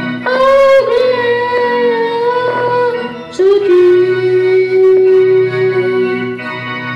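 A boy singing two long held notes, the second lower and starting about halfway through, with his own electronic keyboard accompaniment underneath.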